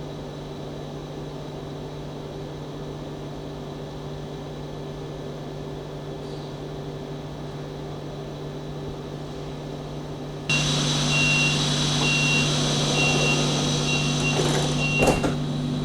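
DB class 426 electric multiple unit standing with its electrical equipment humming steadily. About ten seconds in the sound gets suddenly louder, a high beep repeats for about five seconds, and a couple of sharp knocks follow near the end, which fits the door-closing warning and the doors shutting.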